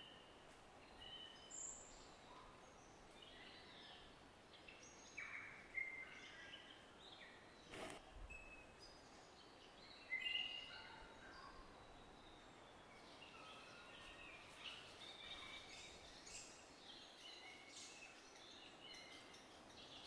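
Faint birdsong: several birds chirping and whistling in short phrases, with one brief click about eight seconds in.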